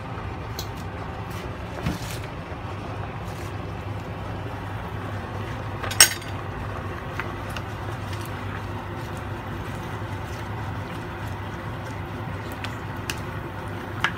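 A plastic ladle stirring leafy greens in a pot of soup, with soft clinks and one sharp knock against the pot about six seconds in, over a steady low hum.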